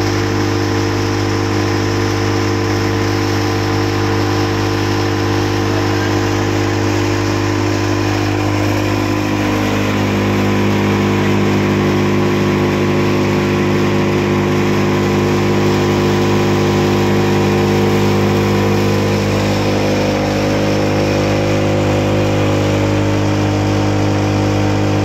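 Tractor-driven thresher running steadily, its drum, fan and belt pulleys spinning with a constant machine drone. The pitch dips slightly about nine seconds in, then holds steady.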